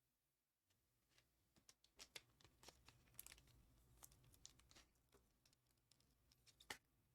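Faint, scattered clicks and rustles of trading cards and packs being handled, starting about a second in, with the sharpest click near the end.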